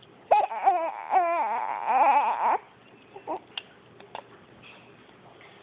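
Baby crying: a fussy, wavering wail of about two seconds, followed by a few short faint clicks and blips.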